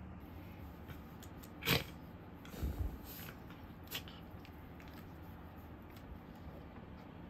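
Shiba Inu puppy mouthing and play-biting a person's hand, with scuffling and a few short sharp knocks, the loudest about two seconds in, followed by a few low thumps.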